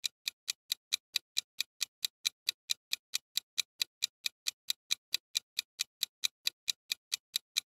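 Clock-style ticking sound effect for a quiz countdown timer, short even ticks at about four a second, stopping near the end.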